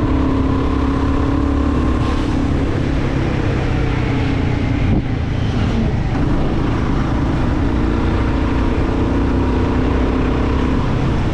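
Royal Enfield Guerilla 450's single-cylinder engine running steadily while the motorcycle rides along, over a steady rush of wind and road noise, with a brief dip in level about five seconds in.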